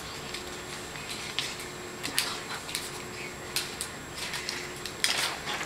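Classroom room noise: a faint steady hum and hiss under scattered small clicks, taps and rustles, with a louder rustle about five seconds in.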